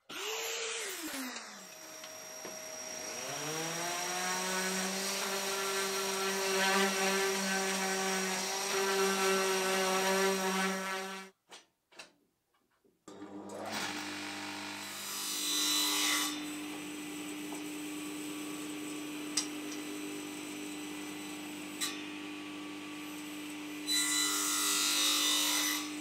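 Electric miter saw spinning up and running steadily, then cutting off suddenly. After a short gap a table saw runs steadily, louder twice as wood is fed through the blade.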